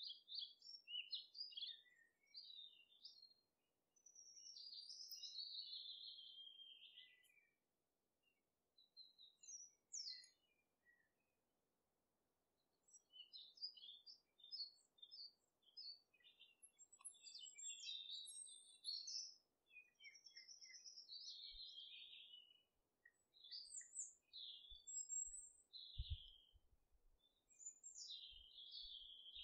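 Faint birds chirping and twittering in short, irregular phrases with pauses between them. Near the end there are a few soft low knocks.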